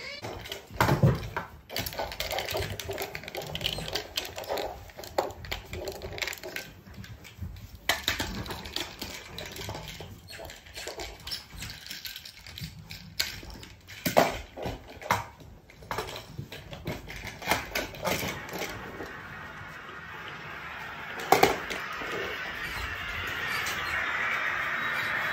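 Asian small-clawed otter knocking and rattling a small plastic basket toy: irregular clicks, taps and clatter. In the last few seconds a steady hiss with a high tone rises.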